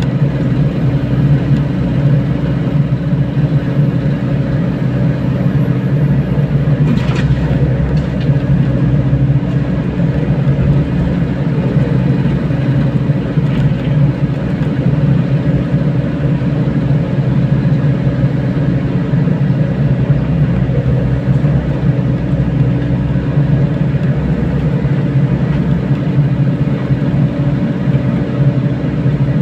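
Mini excavator's diesel engine running steadily at an even speed, with a short knock about seven seconds in.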